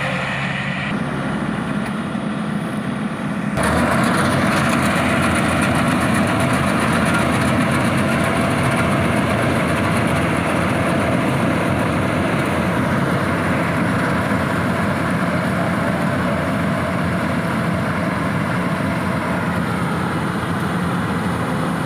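Yanmar AW70GV combine harvester running steadily, its engine and machinery working. About three and a half seconds in, the sound abruptly gets louder and brighter, then holds steady.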